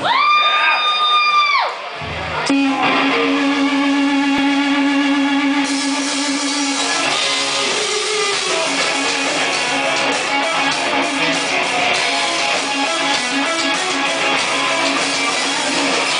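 Live rock band playing electric guitars, bass and drums, loud. It opens with a high held tone that glides up and drops away after about a second and a half. About two and a half seconds in, a repeated low guitar note starts and the full band builds over it.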